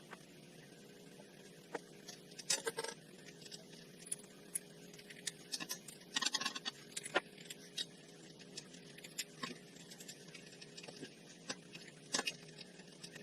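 Scattered light clicks and a short spell of clatter about six seconds in, from hand tools and small metal parts being handled, over a faint steady hum.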